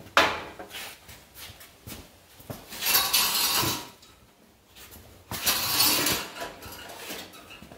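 Manual sheet-metal brake being worked to bend a heavy steel plate: a sharp metal clank just after the start, a few knocks, then two longer rasping metal-on-metal noises, around three seconds in and again around five and a half seconds in.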